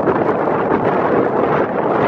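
Wind buffeting the microphone: a steady, loud rush of noise.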